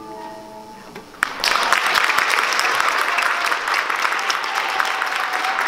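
The last notes of a piano fade out, then an audience bursts into applause a little over a second in, steady clapping that keeps going.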